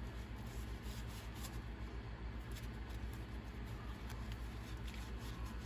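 Faint rustling and rubbing of RC car parts being wiped clean by hand, with small scattered clicks, over a steady low hum.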